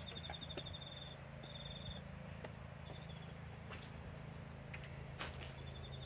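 Quiet outdoor background: a steady low hum under short bouts of high, rapidly pulsed chirping, with a few light clicks and a sharper knock near the end.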